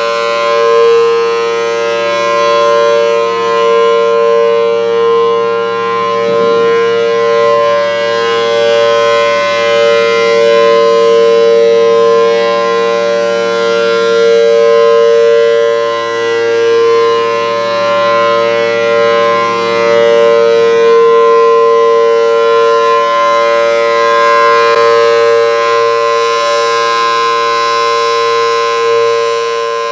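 Federal Signal Thunderbolt 1000 outdoor warning siren sounding a steady alert tone, its 4/5 chopper giving a two-note chord. The loudness swells and fades repeatedly as the rotating head sweeps past.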